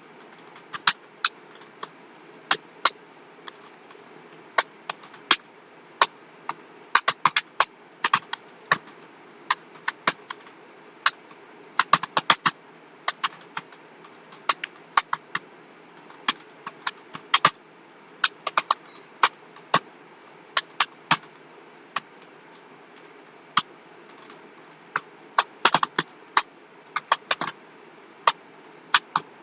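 Computer keyboard keys being typed in short, irregular clicks, now single and now in quick clusters, over a steady low hum.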